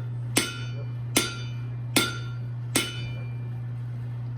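Blacksmith's hammer blows on hot iron over an anvil: four ringing strikes at an even pace, about 0.8 s apart, then they stop. A steady low hum runs underneath.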